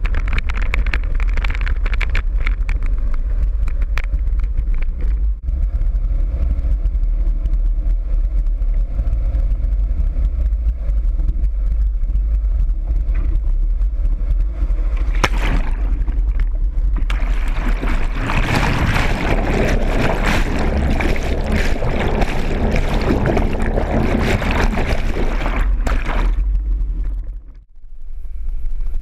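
4WD vehicle running with a continuous low rumble while driving through creek water. A louder rushing noise of water and splashing comes in about two-thirds through and lasts several seconds. The sound dips away briefly near the end.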